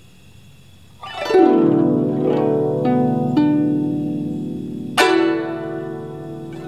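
Guzheng played in a slow improvisation. About a second in, a quick sweep across many strings; then a few single plucked notes. Near five seconds in, a second sweep strikes, and the notes are left to ring and fade.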